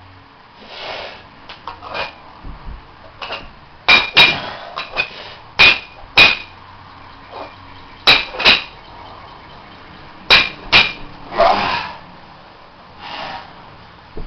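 Small metal weight plates clanking as they are set down one by one onto a stack: sharp metal-on-metal clanks in four close pairs, about every two seconds through the middle of the stretch.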